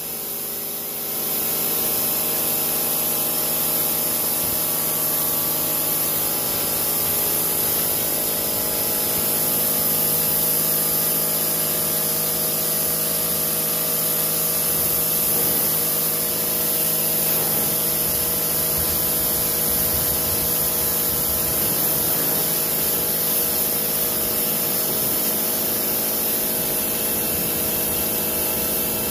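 Sun Joe pressure washer running steadily, its pump motor humming under the hiss of a plain-water spray jet hitting a pickup truck's body: a pre-rinse before foaming.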